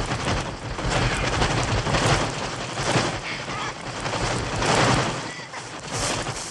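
Mixtur-Trautonium electronic bird sound effects: a dense, crackling flutter like a mass of wings and cries, swelling and ebbing in several waves.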